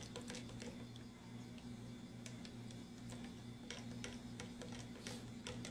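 Faint, irregular light taps of fingertips on a phone's touchscreen while typing, over a steady low electrical hum.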